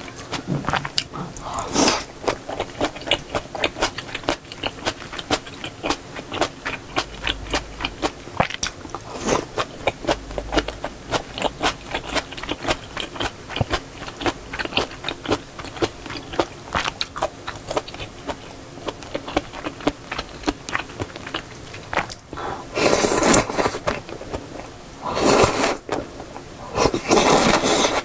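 Close-miked eating of spicy seafood noodle soup: steady chewing with wet mouth clicks, then three long, loud slurps of noodles and broth near the end.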